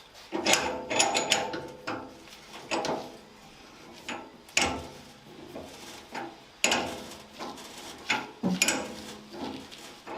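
Irregular knocks and clatters of hard objects being handled, a dozen or so sharp strikes, some followed by a brief ring.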